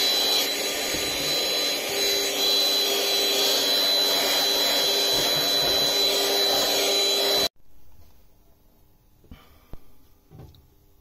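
Vacuum cleaner running with a steady whine as it hoovers a battery bank. It cuts off suddenly about seven and a half seconds in, and a few faint knocks follow.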